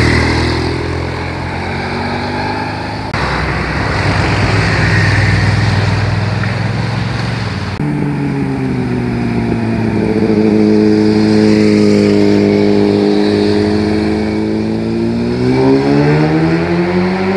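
Motorcycle engines passing through road bends, in several cuts that change the sound abruptly about three and eight seconds in. In the last stretch one engine's note dips, holds steady, then rises as the bike accelerates out of the curve.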